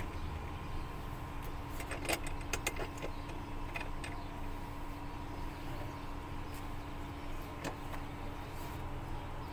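Scattered light clicks and knocks from a car seat being refitted and its locks fastened, most of them a couple of seconds in and one more near the end. A steady low hum runs underneath.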